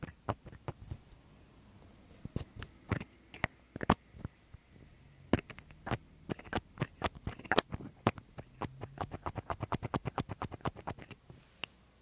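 Small plastic soy-sauce spray bottle being handled: a string of sharp plastic clicks and taps, speeding into a quick even run of about eight a second for a couple of seconds near the end.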